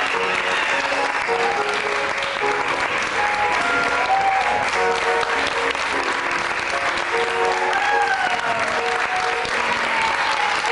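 Audience applauding over music from the pit band, which keeps playing a string of held notes. A few sliding cries rise out of the clapping, near the middle and again near the end.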